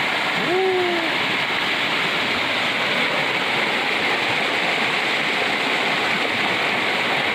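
Fast-flowing floodwater rushing past in a steady, loud, unbroken wash of water noise.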